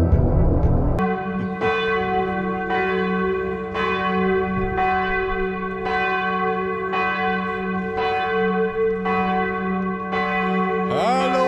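A church bell tolling about once a second, its deep hum ringing on between the strikes.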